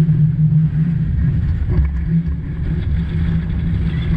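Steady low rumble of wind buffeting an action camera on a banana boat towed at speed, mixed with the rush of water along the inflatable's sides.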